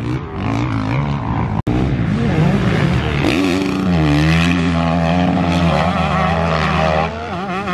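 Motocross dirt bike engine running hard on the track, its pitch dropping and climbing again with a shift and throttle change, then holding steady.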